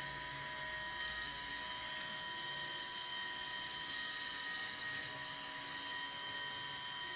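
Electric gyroscope rotor of a vintage aircraft turn and slip indicator spinning at speed on its 28 V supply: a steady high whine with several fixed tones.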